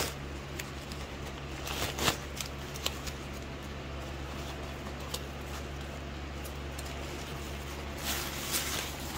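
Brown paper wrapping and a thin blue plastic bag rustling and crinkling as they are pulled off a shipped orchid plant, loudest about two seconds in and again near the end, with small scattered crackles between. A steady low hum lies underneath.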